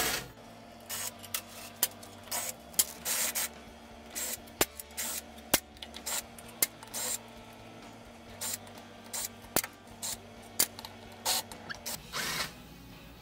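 Cordless power driver whirring in many short, irregular trigger bursts as it runs bolts out of a Ford C4 automatic transmission's valve body.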